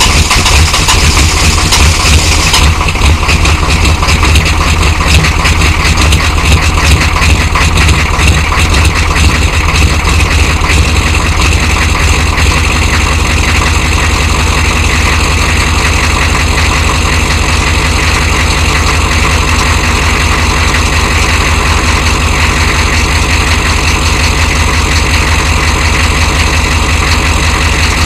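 1993 Chevrolet dually's 6.5-litre V8 turbo diesel idling after a cold start without its block heater, with a steady diesel clatter; the owner says it has an engine knock of some kind. A brighter hiss drops away about two and a half seconds in, and the idle runs a little unevenly for the first dozen seconds before settling steadier.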